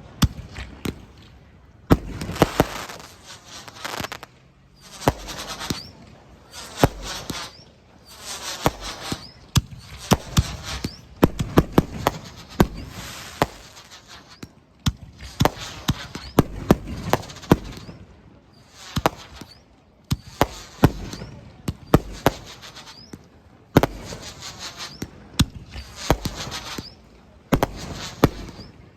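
Fireworks display going off nonstop: sharp bangs of aerial shells, each followed by a crackling tail, one after another every second or two.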